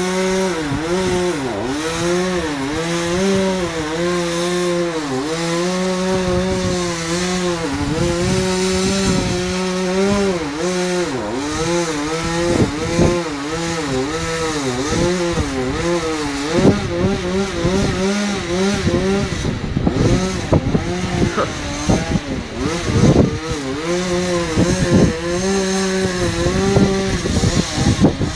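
Two-stroke chainsaw cutting into the trunk of a horse chestnut tree, its engine pitch repeatedly dipping and rising as the chain bites into the wood and frees. Just over halfway through, the cutting turns choppier and more uneven.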